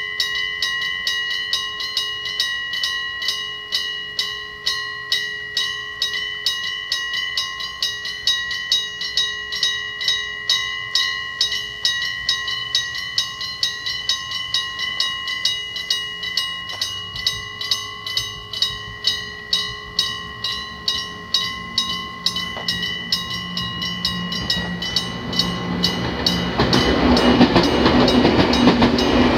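Electric bell of a railway level crossing ringing steadily, at about three strikes a second. About two-thirds of the way through, a train's rumble builds, and near the end the train passes over the crossing loudly.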